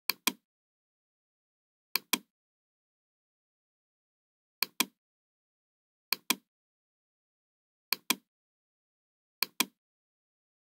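Computer mouse clicking: six pairs of sharp clicks, one pair every one and a half to two and a half seconds, with silence between them.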